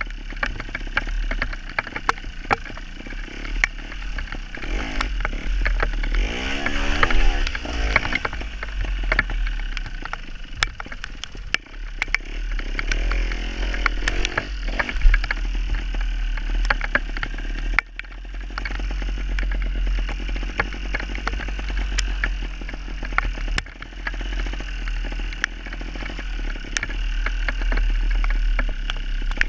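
Gas Gas TXT270 trials motorcycle's two-stroke single-cylinder engine running as the bike is ridden, revving up and down about a quarter of the way in and again near halfway, with many sharp clicks and clatter.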